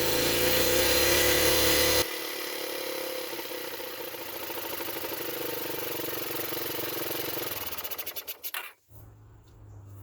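Yamaha engine running after its cracked carburetor intake boot has been given a temporary fix, showing that it still starts and runs. It runs loudly, drops in level about two seconds in, then runs on evenly until its beats spread apart and it stops near the end.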